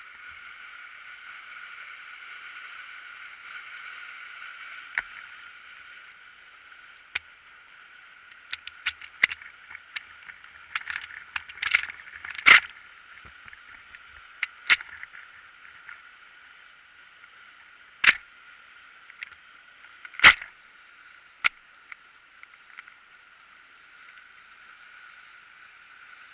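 Waterfall on a river, a steady rushing hiss of falling water. From about five seconds in to about twenty-two seconds, a scattering of sharp clicks and knocks sounds over it, the loudest near the middle.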